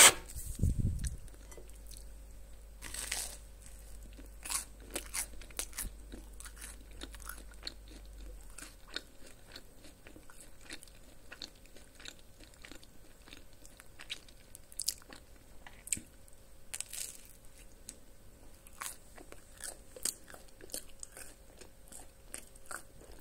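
Toast spread with garlic cream cheese being bitten and chewed: many small, irregular crunches, with a few louder bites about three seconds in and again near seventeen seconds.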